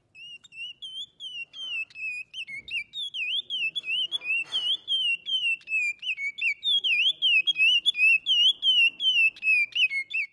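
A curió (chestnut-bellied seed-finch) singing: a long unbroken run of clear, high whistled notes, each quickly slurring up and down, several a second, growing louder over the first few seconds.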